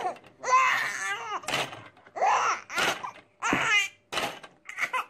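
A baby laughing and squealing in short, high-pitched bursts with gaps between, with a few short sharp sounds between the laughs.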